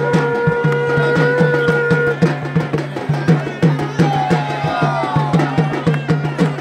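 Drums beating a quick, steady rhythm, with a long held high note over the first two seconds and a few wavering, sliding tones near the middle.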